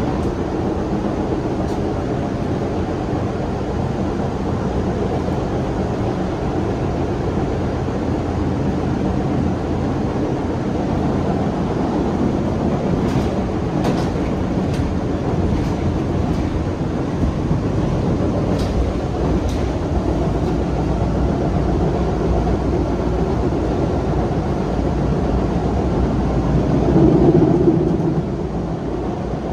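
Running noise inside a new CRRC-built MBTA Orange Line subway car at speed: a steady low rumble of wheels on rail, with a few faint clicks in the middle and a swell louder for a couple of seconds near the end.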